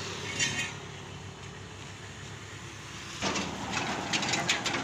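A large rubber loader tire being handled on a steel rim: a low steady rumble, then from about three seconds in a run of short knocks and scrapes as the tire is worked onto the rim.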